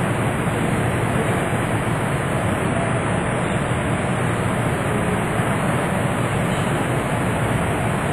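Steady rushing noise with no distinct events and no voices.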